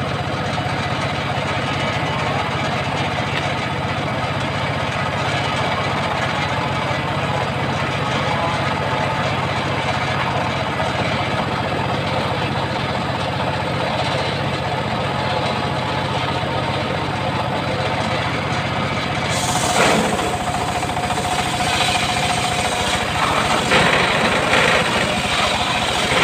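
Engine of a homemade circular sawmill running steadily, its big blade spinning free. About three quarters of the way through, the blade bites into a mahogany log, and a high hiss and a steady whine from the cut join the engine.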